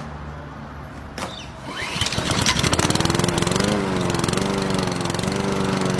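A small engine running, with a click near the start; about two seconds in it gets louder and runs fast with a rapid, even pulsing.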